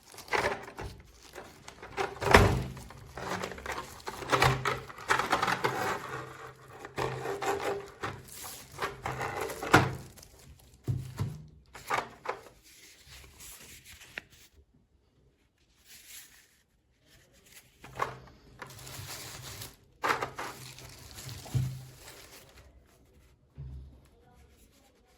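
Handling noise from a metal-and-plastic selfie stick tripod: a string of knocks, thunks and clicks with rustling between them. The loudest knocks come about two seconds in and near ten seconds, with quiet gaps in the second half.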